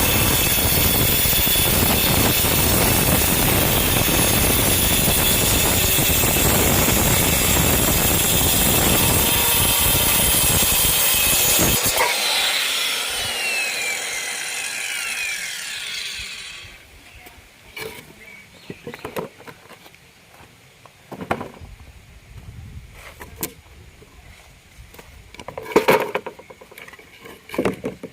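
Circular saw cutting through plywood, running loudly and steadily. About 12 seconds in, the trigger is released and the blade whines down in falling pitch over a few seconds. Then a few scattered knocks and clatters follow, the loudest near the end.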